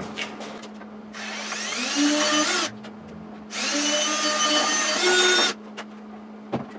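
Electric drill run twice, about a second and a half and then two seconds, its motor whining up to speed as it drills out mounting holes in fiberglass bodywork.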